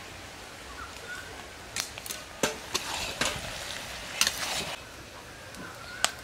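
Metal spatula stirring and scraping a cabbage, potato and brinjal chorchori in an iron kadai, with a low sizzle from the hot pan and a few sharp scrapes of metal on iron.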